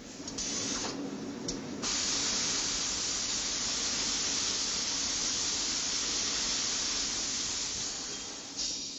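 Steady loud hiss of machinery at the robot cell that loads steel lawnmower handles onto a transporter, with a low hum underneath. It starts thinner, becomes fuller and brighter about two seconds in, and eases off just before the end.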